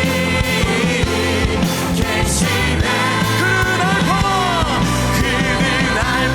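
A live church praise band and singers performing a contemporary Korean worship song, with a sung line gliding in pitch about three to five seconds in.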